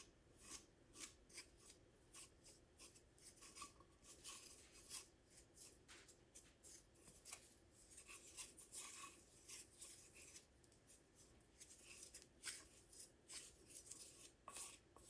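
Faint scraping of a wooden jumbo popsicle stick spreading spackle over a ceramic pot, in short irregular strokes about two or three a second.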